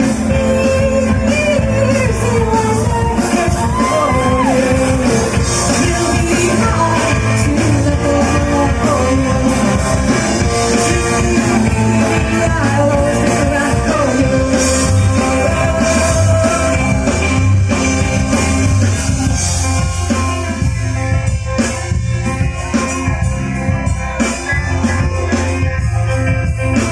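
Live rock band playing a song, a singer's voice over guitar and drums. The vocal line drops out about two-thirds of the way through, leaving the band playing on with steady drum hits.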